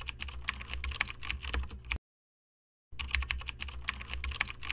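Computer keyboard typing sound effect: rapid keystrokes that stop dead for about a second near the middle, then start again.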